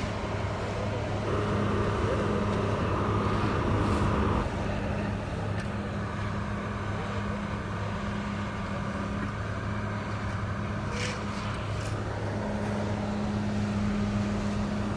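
Asphalt paver's diesel engine running steadily at work. A higher whine joins in about a second in and cuts off suddenly around four and a half seconds, with a short click or two later on.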